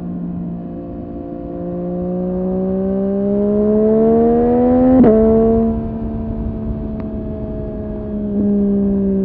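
Yamaha MT-09's three-cylinder engine through a Dominator HP8 aftermarket muffler, accelerating under way with the pitch climbing steadily. About five seconds in, an upshift drops the pitch sharply, and the engine then runs on with the pitch easing slowly down.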